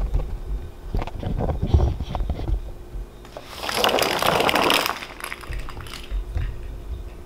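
Thumps and handling noise from a camera being carried, then about a second of loud rustling roughly halfway through.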